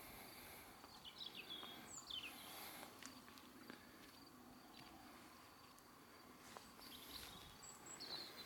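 Near silence in open countryside: faint outdoor ambience with a few brief high chirps about a second in and again near the end, and a few faint clicks.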